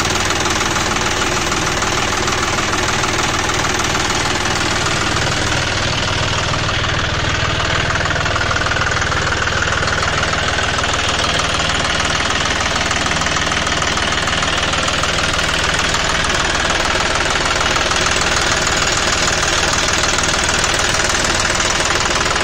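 The John Deere 5405 tractor's three-cylinder, 2900 cc turbocharged diesel engine idling steadily. It is running normally, with no unusual noise.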